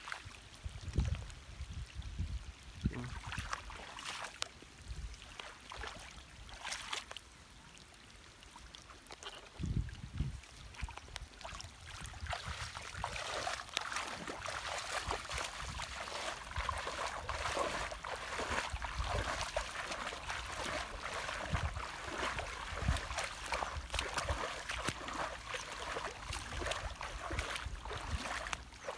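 Water trickling and splashing, with scattered knocks and low thumps.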